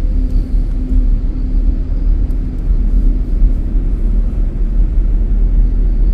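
Steady low rumble of a car's engine and road noise heard from inside the moving car's cabin.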